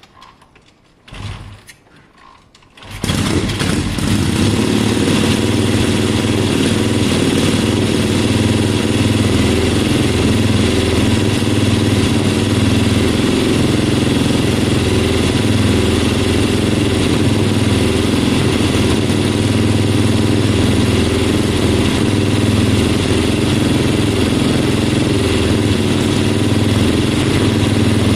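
1973 Triumph Bonneville T120's 650 cc parallel-twin engine starting about three seconds in, then running steadily. This is its first start on a freshly fitted pair of Wassell carburettors, used straight out of the box, with the engine still warming up.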